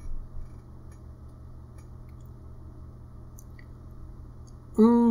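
Low steady background hum with a few faint clicks, then near the end a person's held, level-pitched hum ('mmm'), a thinking sound.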